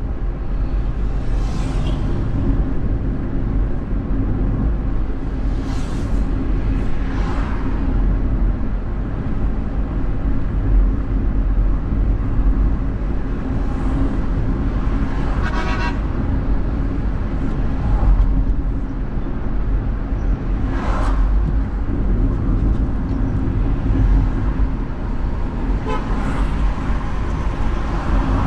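Steady low road and engine rumble of a car driving in city traffic, heard from the dashcam inside the car, with a few brief car-horn toots from surrounding traffic, the clearest about halfway through.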